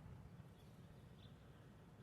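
Near silence: faint outdoor ambience with a low rumble of wind or handling, and two brief, faint high bird chirps about half a second and a second and a quarter in.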